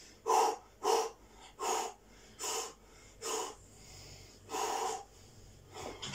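A man breathing out hard in time with his crunches: six short forceful breaths at about one a second, the last one a little longer.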